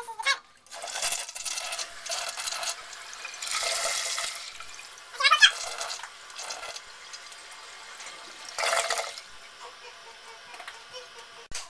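Toilet flushing: water rushes and swirls through the bowl and dies away after about nine seconds. A brief high-pitched squeal cuts in about five seconds in.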